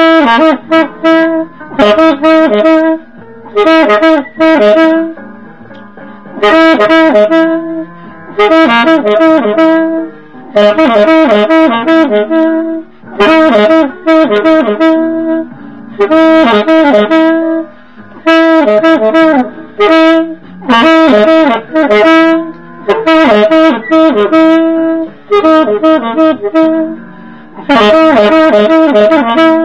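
1920s Buescher True Tone low-pitch alto saxophone, a vintage horn built to the modern A=440 pitch, playing a jazz ballad melody in short phrases of held and moving notes with brief breaks between them. A quieter accompaniment sounds steadily underneath.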